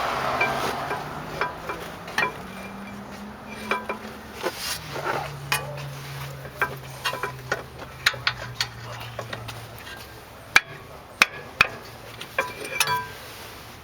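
Metal tools and brake parts clinking and tapping while being handled, a string of scattered sharp knocks, the loudest a few seconds before the end, over a low steady hum.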